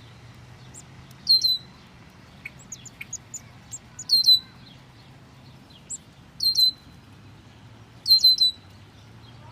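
Bird chirping: four short bursts of high, quickly falling chirps roughly two seconds apart, with fainter single chirps in between.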